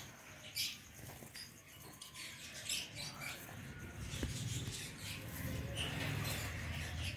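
Leaves rustling and scratching against the phone as it is pushed through the branches, with scattered short crackles and a low rumble of handling or wind noise that grows stronger about halfway through.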